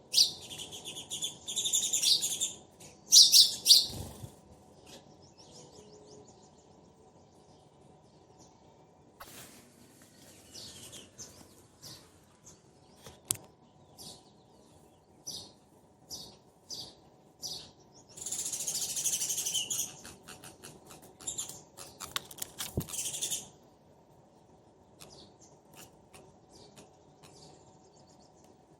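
A pair of sparrows chirping: a dense run of rapid chirps at the start and another past the middle, with scattered single chirps between and a quieter stretch near the end.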